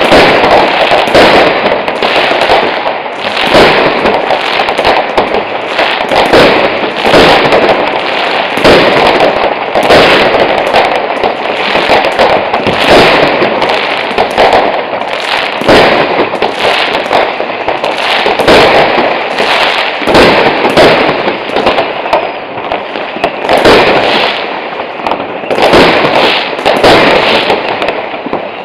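Fireworks going off without let-up: a dense, continuous stream of loud bangs and crackles, many a second.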